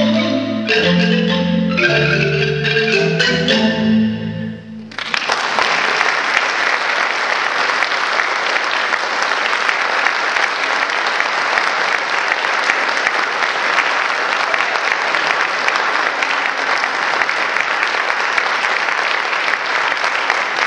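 Marimba ensemble playing the final bars of a piece: struck wooden bars over a low rhythmic bass line, stopping about four seconds in. About a second later the audience breaks into steady applause that lasts to the end.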